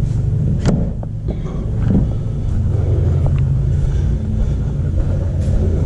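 A steady low rumble runs throughout. Over it, a few sharp knocks come from a metal storage cabinet as a towel is taken out, the clearest under a second in.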